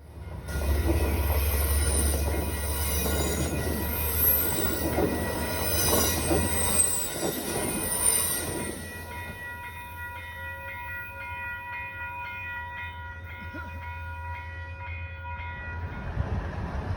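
Vehicle running with a low rumble and high, wavering squeals for the first eight seconds or so, then a quieter stretch of several steady high whining tones that stops shortly before the end.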